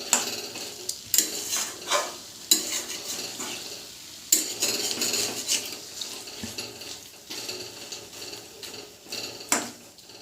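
A spoon scrapes and clinks against a kadhai as chicken is stirred while it fries in masala, with a steady sizzle underneath. The strokes come irregularly, every second or so.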